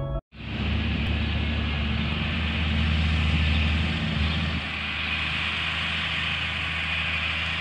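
Massey Ferguson 6480 tractor engine running steadily at a distance, a low even hum with a hiss over it; the engine note eases off slightly about four and a half seconds in.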